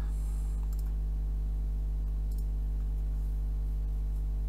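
Steady electrical mains hum, with a few faint computer-mouse clicks.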